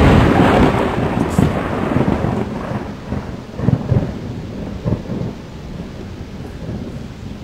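A thunderclap that breaks sharply at the start and rolls on as a long rumble, swelling again several times before slowly dying away.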